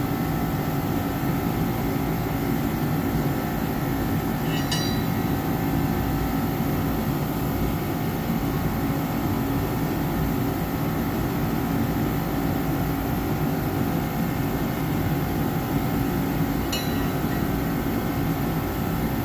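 Garage heater running with a steady, even blowing noise and hum. Two light clinks, about five seconds in and near the end, come from wrenches being set into the organizer.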